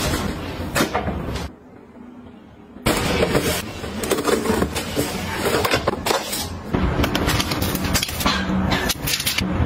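Small items being handled and set down: a busy run of clicks, knocks and clattering from containers and packaging, broken by a sudden quiet pause of about a second and a half near the start.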